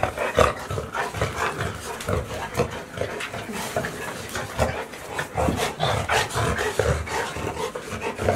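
A litter of golden retriever puppies mobbing an adult golden retriever, making many short, irregular dog sounds over the scuffle of paws.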